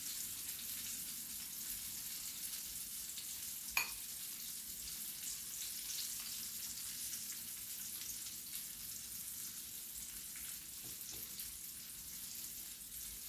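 Flour-coated chicken pieces frying in hot oil: a steady sizzle, with one light click about four seconds in.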